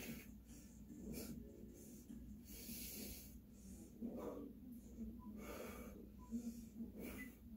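A person breathing hard with the effort of ab exercises, short forceful breaths every second or so, over a faint steady hum.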